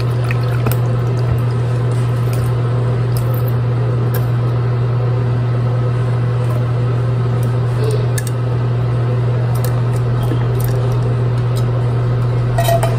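A steady low hum from a running kitchen appliance, with light clicks and wet squishing as pickled jalapeños are poured and shaken out of a metal can into a plastic container.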